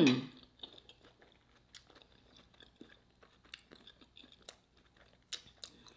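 Close-miked eating of shrimp, sausage and cabbage stir fry: soft, scattered chewing clicks and crunches. It opens with the tail of a falling, closed-mouth 'mmm'.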